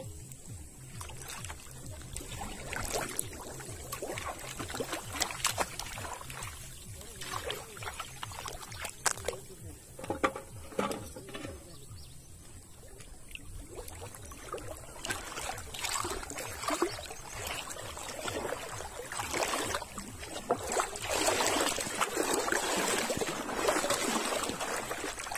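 Shallow pond water lapping and sloshing with small irregular splashes and drips, as the water is stirred by someone wading; the splashing grows louder and denser near the end.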